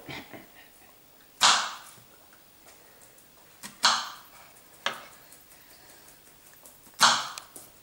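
Kitchen knife slicing through strawberries and knocking on a plastic cutting board: four sharp knocks a second or two apart, each with a short scrape.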